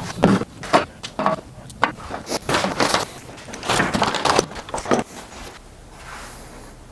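Irregular series of knocks and scrapes of wood being worked by hand, stopping about five seconds in.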